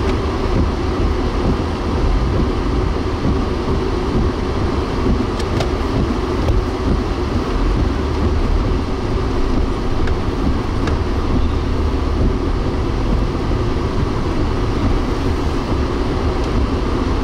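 Strong wind buffeting the microphone: a loud, continuous rumbling rush with a few faint ticks.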